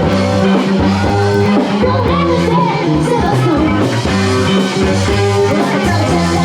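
Live rock band with electric guitar, bass and drums playing, a singer's voice in it.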